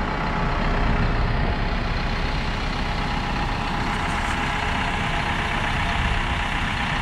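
2016 Isuzu NRR box truck's four-cylinder turbo-diesel idling steadily.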